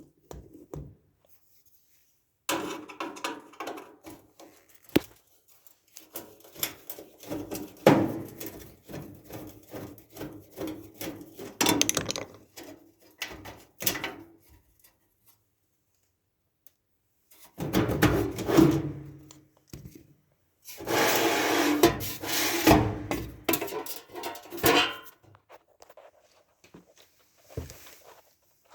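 Dryer parts being worked loose by hand: irregular bursts of scraping, rubbing and knocking, with near-silent pauses in between.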